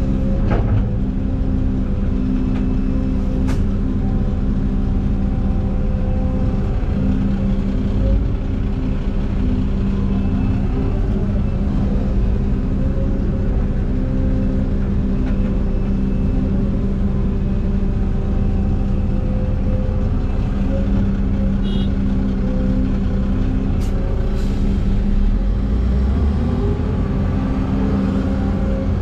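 Heavy diesel earthmoving machinery running steadily with an even, unbroken engine drone, and a few faint clicks and knocks.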